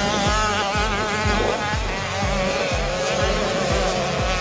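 Distant 85cc two-stroke motocross bikes buzzing on the track, their engine pitch rising and falling quickly as the throttle is worked over the jumps.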